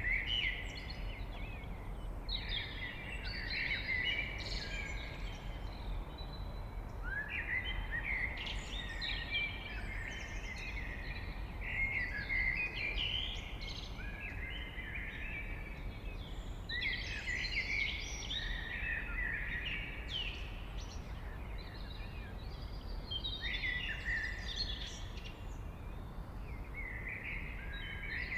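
Blackbird singing: a series of warbled song phrases a few seconds apart, over a steady low background rumble.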